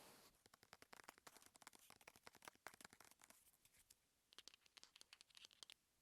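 Faint, close-up ASMR trigger sounds: a rapid run of soft crackly clicks and scratches, thinning out a little past halfway, then a sparser string of sharper clicks near the end.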